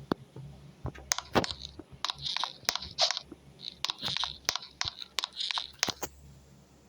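Handling noise: irregular sharp clicks and short crunchy rustles that stop about six seconds in.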